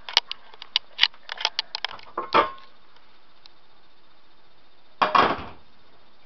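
Handling noise from a handheld camera being moved about: a quick run of sharp clicks and knocks for the first couple of seconds, then a louder scraping rustle about five seconds in.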